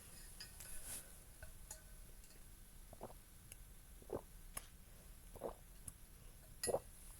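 A person drinking, with four gulping swallows a little over a second apart and faint clicks in between.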